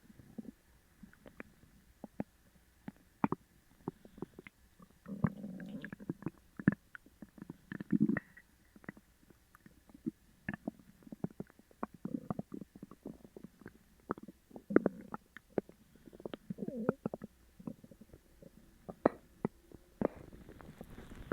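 Loud gurgling and rumbling from an upset stomach after eating sugar-free gummies. Irregular bursts of rumbling come a few seconds apart, among many sharp little pops and squelches.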